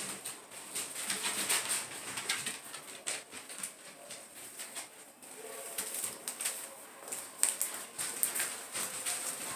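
Young puppy squirming on spread newspaper, the paper crinkling and rustling in many small crackles, with a short soft whine about five seconds in.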